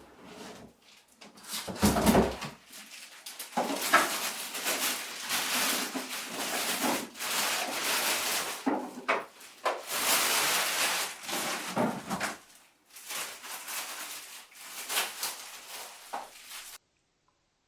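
Packaging being handled while a boxed cylinder vacuum cleaner is unpacked: irregular rustling and scraping with scattered knocks, and a dull thump about two seconds in. The sound cuts off abruptly shortly before the end.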